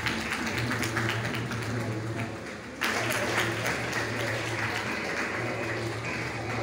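Audience applauding, with a steady low hum underneath; the clapping jumps abruptly louder about three seconds in.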